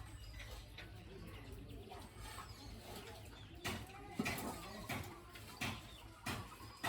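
Faint low animal calls, with several sharp knocks in the second half.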